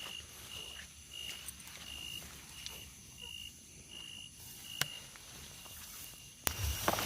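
Night insects calling: a short, even chirp repeating about twice a second over a steady high-pitched insect hum. A single sharp click comes near the middle, and shortly before the end a sudden louder rustling noise cuts in.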